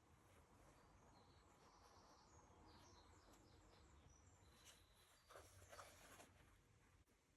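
Near silence: faint room tone with a few faint, short high chirps and, about five seconds in, a brief soft rustle.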